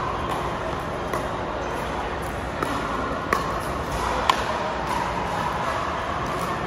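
Pickleball paddles striking a plastic ball during a doubles rally: about four sharp pops roughly a second apart, the last and loudest about four seconds in, over steady hall noise.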